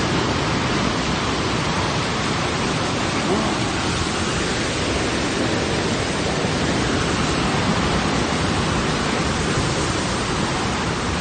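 Steady, loud roar of tornado winds and heavy rain.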